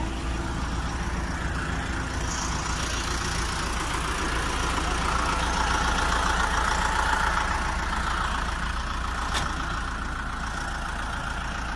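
Concrete pump's engine running steadily, swelling a little in the middle, with a single sharp click about nine seconds in.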